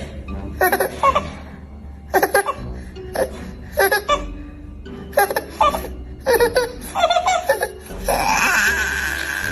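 A baby laughing in short repeated bursts, about one a second. Near the end a steadier, higher-pitched sound takes over.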